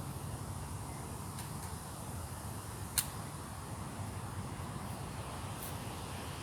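Wind buffeting the microphone with a steady low rumble, on a very windy day. A single sharp click comes about three seconds in, with a few faint ticks elsewhere.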